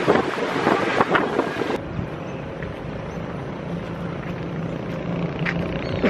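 Wind rushing over the microphone with road and engine noise while riding in an open-windowed bus. About two seconds in it cuts to a steady, quieter low hum.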